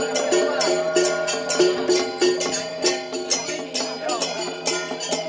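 Traditional temple-festival music: a steady percussion beat of about three strikes a second over held pitched tones.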